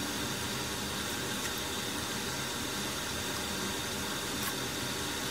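Steady, even hiss of background room noise, with no distinct event in it.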